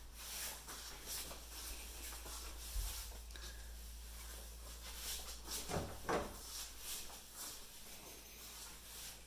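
Footsteps and light rustling of someone walking slowly indoors, roughly two steps a second, over a low steady hum. About six seconds in come a couple of louder rubbing knocks.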